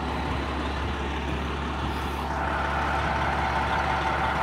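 Fire ladder truck's diesel engine running with a steady low rumble, and a steady whine that grows louder about halfway through.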